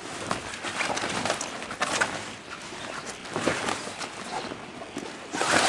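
Canvas annex panel being handled and fitted: irregular rustling of the fabric with small knocks and clicks, and a louder rustle near the end.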